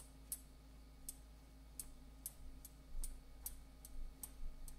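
Light plastic clicks and taps, unevenly spaced at about two a second, as cornstarch is shaken and tapped out of a plastic tub, over a faint steady low hum.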